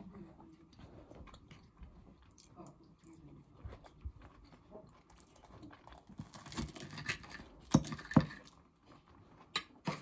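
Close-up chewing of food by one person, with a fork scraping and clinking on a plate in the second half. Two sharp clinks come a little after the middle.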